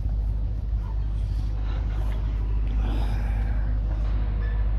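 Steady low outdoor rumble with no distinct events, and a faint brief rise in higher noise about three seconds in.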